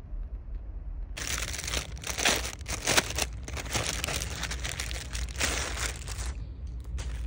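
Clear plastic polybag crinkling as a handbag is unwrapped and pulled out of it. The crinkling starts about a second in and stops about six seconds in, with a couple of brief crackles near the end.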